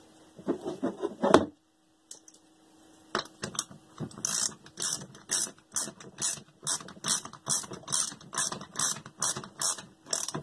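Small ratchet wrench clicking as it runs down the retaining nut on a hot-water circulator pump's impeller shaft: a short run of clicks, a pause of about a second and a half, then steady back-and-forth strokes about three a second.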